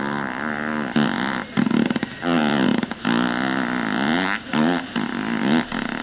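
Remote-controlled electronic fart-sound toy playing a string of long, buzzy fake farts whose pitch wavers up and down, several in a row with short breaks between.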